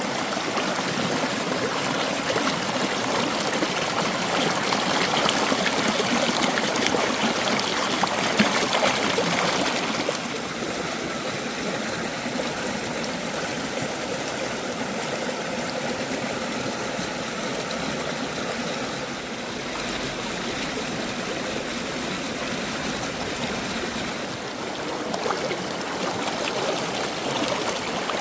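Mountain valley stream running over rocks, a steady rush of water; it drops a little in level about ten seconds in.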